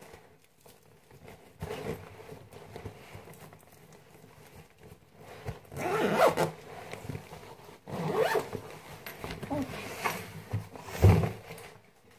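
A zipper on a black fabric bag being pulled in several separate rasping strokes, with handling rustle between them. The loudest stroke comes near the end, together with a thud.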